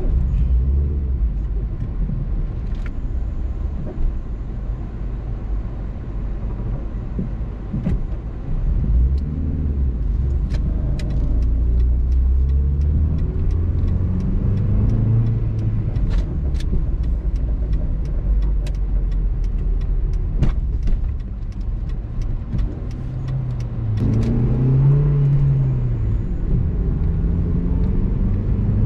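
Car engine and tyre rumble heard from inside the cabin while driving. The engine note rises a few times as the car accelerates, and there are scattered light clicks.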